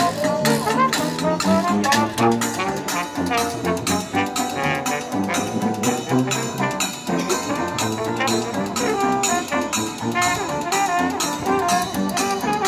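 Dixieland jazz band playing: trumpet, trombone and clarinet over tuba, two banjos and a washboard keeping a steady beat.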